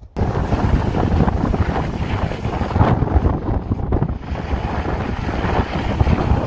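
Wind buffeting the phone's microphone: a loud, steady rush of wind noise that cuts in suddenly at the very beginning.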